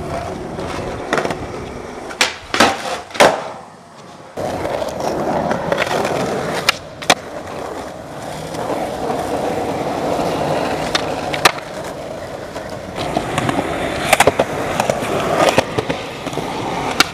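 Skateboard wheels rolling on concrete, broken by sharp clacks of the tail popping and the board landing, several times over.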